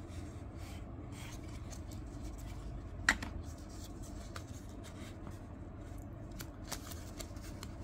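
Folded old paper leaflet being unfolded and handled: faint paper crinkling with scattered crackles, the loudest about three seconds in.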